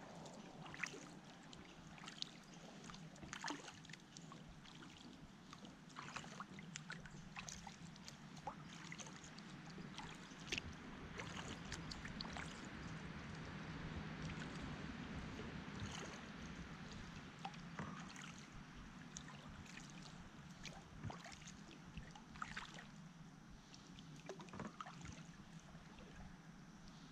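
Faint water sounds of a kayak being paddled on a calm river: soft splashing and trickling from the paddle strokes, with scattered small drips and ticks. The sound swells a little midway.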